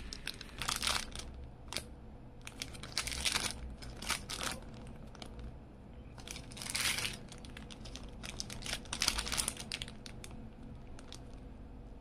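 Small clear plastic zip bags of screws being handled and turned over, crinkling in irregular bursts that die down near the end.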